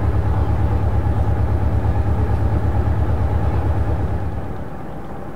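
Diesel engine of the 1948 motor tug Kent idling, a fast, steady low throb that drops away about four seconds in.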